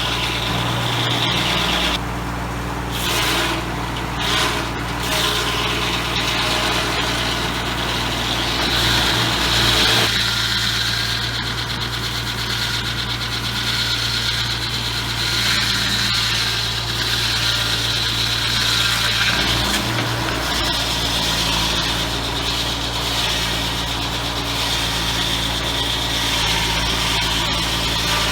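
A circular sawmill blade powered by the PTO of a 28 hp Ford 1910 tractor, sawing a cedar log, with the tractor engine's steady hum under a high whine from the blade. The engine note shifts briefly about a third of the way in and again about two-thirds of the way in.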